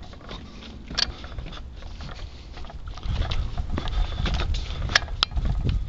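Low rumble of wind and footsteps on a handheld camera's microphone while walking, getting louder about halfway through, with a sharp click about a second in and two more near the end.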